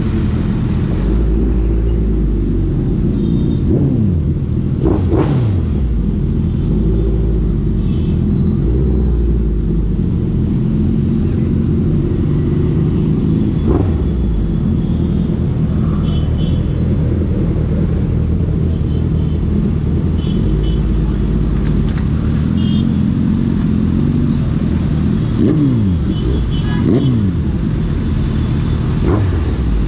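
Suzuki Hayabusa Gen3's inline-four engine through an aftermarket Ixil exhaust, running with a steady low rumble while riding, its pitch rising and falling with the throttle a few times, around five seconds in and again near the end.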